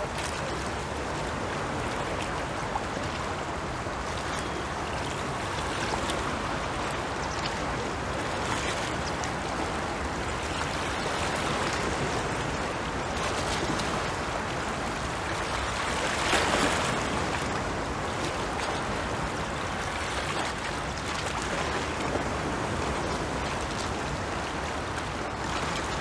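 Small waves of the Caspian Sea washing against a concrete pier wall: a steady wash of water, swelling a little about sixteen seconds in.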